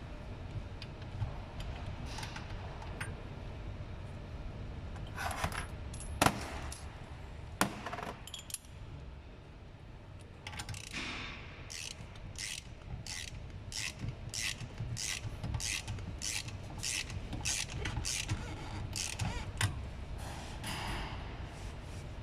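Metal work on a car's front strut assembly: a couple of sharp metal clinks, then a regular run of short rasping strokes, about two a second.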